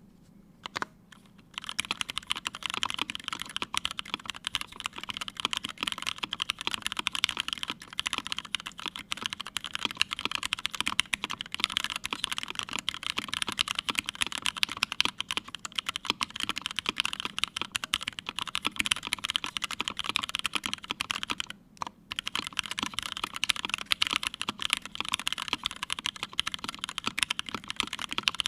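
Continuous fast typing on a GSKT-00 mechanical keyboard with lubed Cherry MX Hyperglide Black linear switches in a full aluminium plate and CRP Tulip keycaps: a dense run of key clacks. It opens with a couple of single keystrokes and breaks off briefly about two-thirds of the way through.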